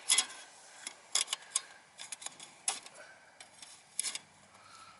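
Scattered sharp metallic clicks and clacks of a folding camp table's aluminium top panels and stainless steel leg pieces being handled, pulled apart and slotted together.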